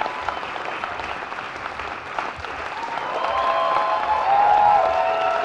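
Theatre audience applauding steadily, dense clapping throughout. From about three seconds in, several held, wavering tones rise above the clapping, like cheering whoops from the crowd.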